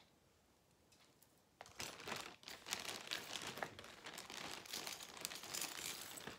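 Rummaging in a bag of costume jewelry: crinkling of the bag with many small clicks, starting about one and a half seconds in and going on busily.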